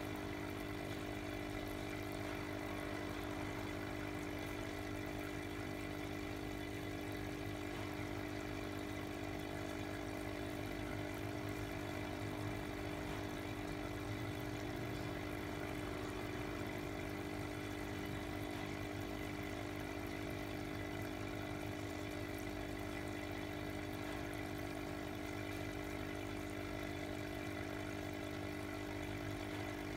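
Small aquarium pump humming steadily, with water bubbling and churning at the surface of a goldfish bowl.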